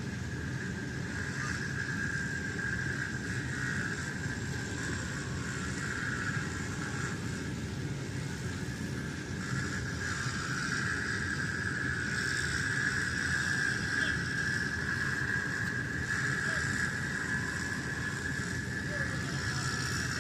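Engine of a concrete leveling machine running steadily, a low rumble with a constant high whine over it.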